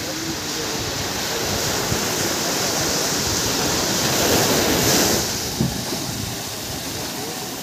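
Small waves breaking and washing up a sandy beach around a boat's hull, swelling to a louder rush about four to five seconds in, then easing.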